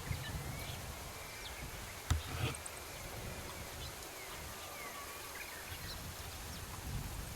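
Faint, scattered short bird chirps and calls over outdoor background noise, with a few low thuds and a sharp click about two seconds in.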